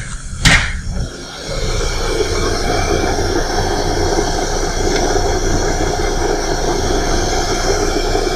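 A sharp click as the steam turbine's start button is pressed. About a second later the turbine's start-sequence machinery starts up and runs with a steady, loud mechanical whir.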